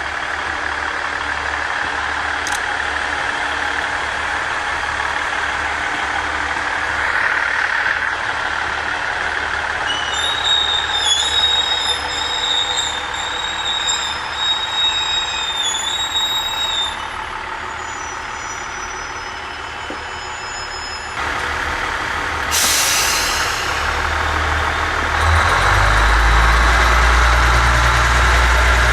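KiHa 110 diesel railcars running at low speed, their diesel engines rumbling steadily. A high, wavering metallic squeal comes through the middle, a short sharp hiss of air follows about two-thirds of the way in, and near the end the engine rumble grows much louder.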